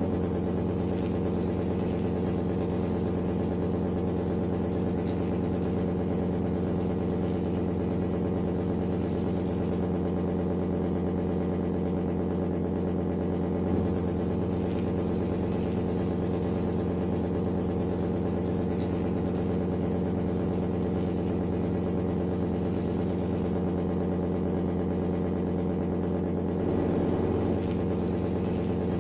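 A steady, engine-like idling drone at one unchanging pitch, with a single small knock about halfway through and a slight swell near the end.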